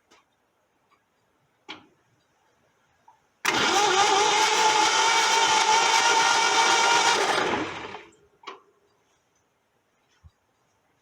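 Old Ford F-350's starter cranking the engine over steadily for about four seconds, then winding down without the engine firing. This is its first crank after sitting since 1984.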